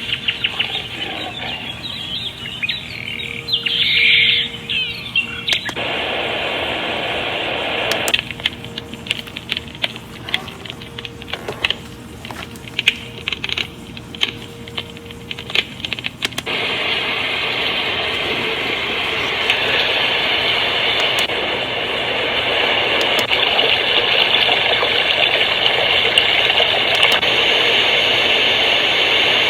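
A SHARP SPC585 alarm clock playing its built-in sleep sounds and switching between tracks. First comes birdsong with chirps, then a stretch of crackling clicks like a campfire. From just past the middle there is a steady, even hiss.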